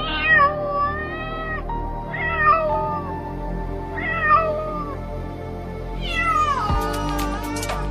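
A black-and-white tuxedo cat meowing four times, the last call longer and falling in pitch, over background music.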